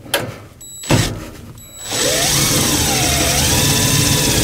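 Cordless drill driving a self-drilling screw into a sheet-metal heater housing. It runs for about three seconds from two seconds in, its motor pitch wavering as it labours, after a couple of short clicks. The screw struggles to cut into the metal, which is hard enough to need pre-drilled holes.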